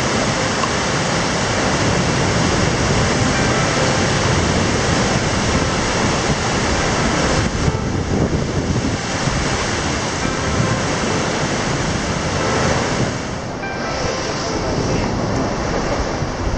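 Sea waves and surf washing, a steady rushing noise with a slight lull about halfway through.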